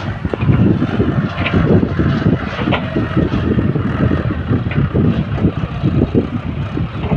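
Diesel engine of heavy earthmoving machinery running, with a rough, uneven low rumble and a few faint knocks.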